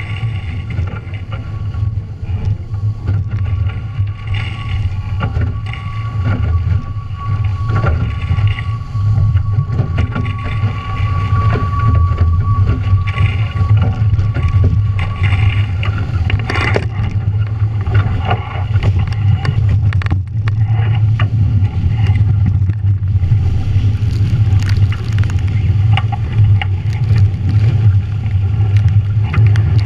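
Wind buffeting the action-camera microphone and water rushing past a Nacra 17 racing catamaran under sail. A steady high whine runs through the first half and stops about halfway, with a few sharp knocks.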